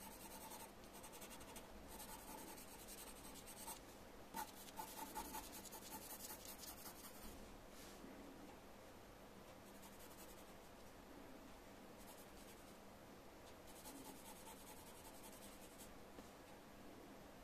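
Faint scratching of a graphite pencil hatching shading on paper: quick back-and-forth strokes in two spells over the first half, a quieter pause, then another spell near the end.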